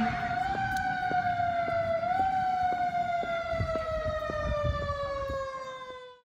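Fire engine siren winding down: one long wailing tone whose pitch falls slowly, with a brief rise about two seconds in, fading out near the end.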